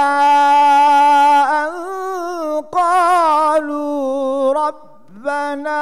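A man's solo Quran recitation in melodic tajwid style, holding long notes with wavering ornaments. There is a brief break about halfway through and a short pause for breath near the end before the voice resumes.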